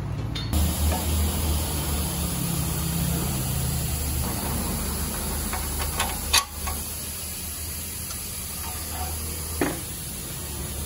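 Steady hiss of workshop noise, with one sharp metallic clink about six seconds in and a softer knock near the end, from hand tools on the alternator mounting bracket.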